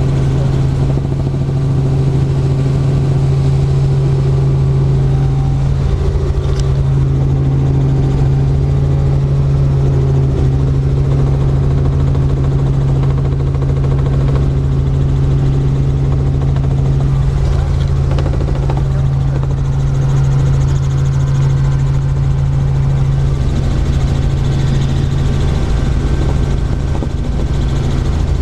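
Robinson light helicopter in flight, its engine and rotors making a loud, steady low drone.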